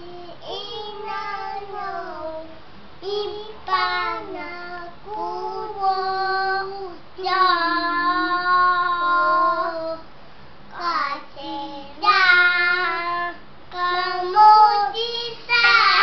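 Two young children singing a song without accompaniment, in short phrases with brief pauses between them and one long held note about halfway through.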